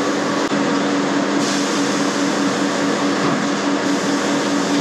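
Steady mechanical hum with an even low drone. A faint hiss joins in about a second and a half in and drops away a little before the end.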